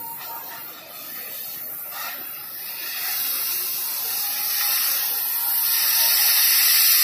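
Oxy-fuel cutting torch hissing as it cuts through steel. The hiss grows louder about halfway through.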